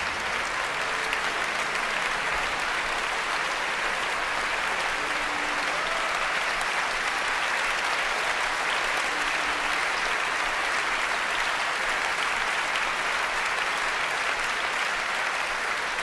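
Audience in a large concert hall applauding steadily after an orchestral premiere.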